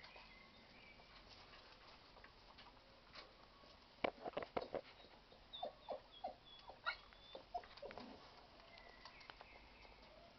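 Young puppies yipping: a run of short yelps starting about four seconds in and lasting a few seconds, with faint high squeaks near the end.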